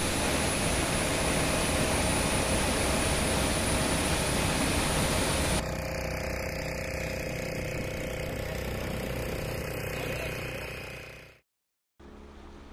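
Water from a small waterfall rushing with a steady hiss. After about five and a half seconds it cuts sharply to a motorboat's engine running at a steady hum over the water, which fades out near the end and comes back quieter after a short gap.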